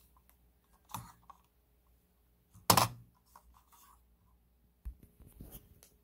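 Handling noise of a Logitech M90 optical mouse being turned over in the hand: a few light knocks and rubs about a second in, then one sharp plastic knock, the loudest sound, just before the middle, and scattered small scrapes and taps near the end.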